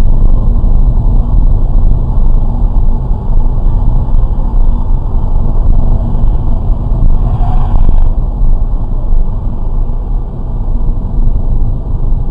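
A vehicle on the move: a loud, steady low rumble of engine and road noise, with a brief brighter patch about eight seconds in.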